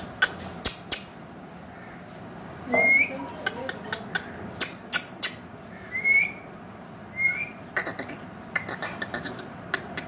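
Indian ringneck parakeet giving three short, rising whistled calls, amid scattered sharp clicks.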